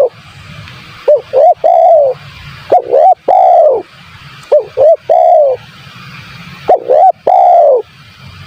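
Spotted dove (tekukur) cooing: four phrases, each two or three short coos followed by one long coo that falls in pitch, repeating about every two seconds.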